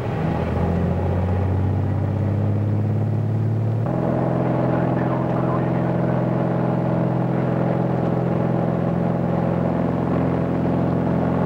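Engine and propeller of a light single-engine airplane running at high power on the takeoff roll, a steady drone heard from the cockpit. About four seconds in, the pitch of the drone changes abruptly.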